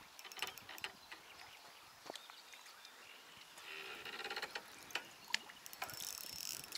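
Quiet waterside ambience with scattered faint clicks. A brief distant animal call comes about four seconds in, and a short rustle near the end.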